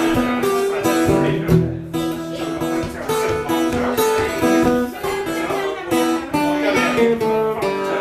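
Washburn acoustic guitar played live in a blues-folk style, an instrumental passage with a new note or chord about twice a second.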